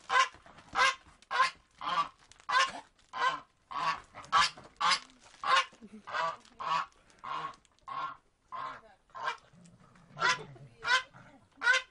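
A grey domestic goose honking at a dog, one loud, harsh honk after another at about two a second, with a brief pause near the end.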